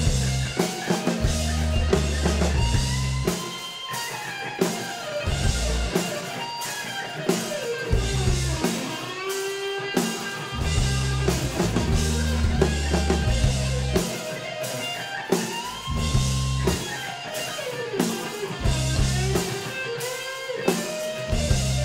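Rock'n'roll band playing live: electric guitar with sliding, bending notes over a bass line and drum kit.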